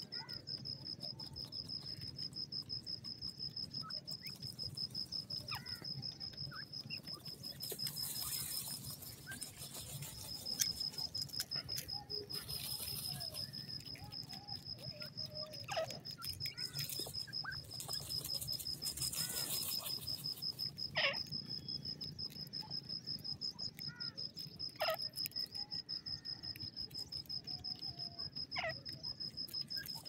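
A cricket trilling steadily in a fast pulsing rhythm, high-pitched and unbroken. Several short calls that slide downward, from birds, cut in now and then, most clearly in the second half.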